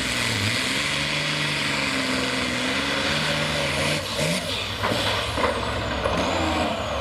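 Hot farm pulling tractor's turbocharged diesel engine running hard, with a strong hiss over the engine note. The engine pitch dips shortly after the start and wavers, and a few sharp cracks come around four seconds in.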